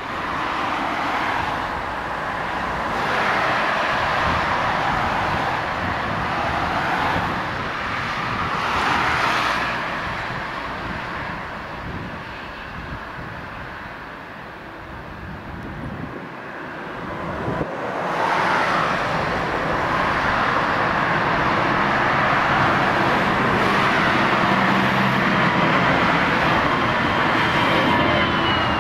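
Airbus A320 jet engines at go-around thrust as the airliner aborts its landing and climbs away: loud, steady jet noise that eases off somewhat midway and builds again. A falling whine comes near the end.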